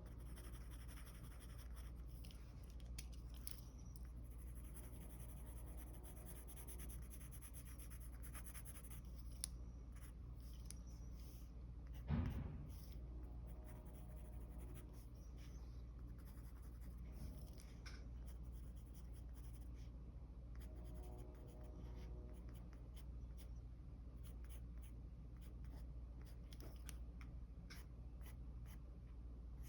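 Mechanical pencil sketching on paper: faint, scattered scratching strokes over a low, steady hum. A single soft thump about twelve seconds in is the loudest sound.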